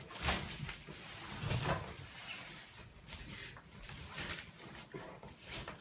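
Large cardboard shipping box being handled and shifted on a hardwood floor: a handful of short scrapes and knocks of cardboard on wood and hands rubbing the carton.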